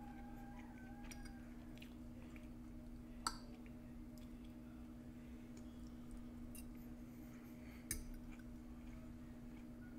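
A metal fork clinking against a plate twice, a few seconds apart, over a steady low hum.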